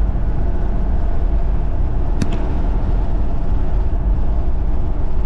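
Toyota 1KZ-TE four-cylinder turbo diesel of a 1995 Land Cruiser Prado running steadily on a warm-up drive, with no change in pitch. A brief click sounds about two seconds in.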